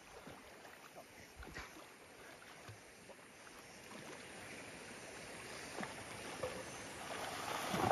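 Faint splashing and lapping of water from a person swimming in a river some way off, growing a little louder toward the end.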